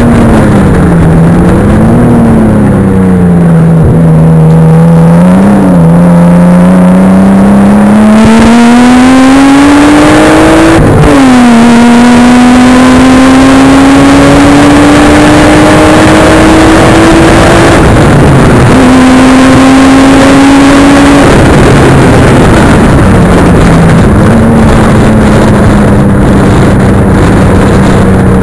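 Nissan Skyline GTS-T's engine and exhaust under hard track driving, heard from a camera on its boot: the note climbs steadily through the revs, drops sharply at two upshifts about a third and two-thirds of the way in, then falls as the car lifts off and runs lower and steadier near the end. The sound is very loud against the small camera's microphone.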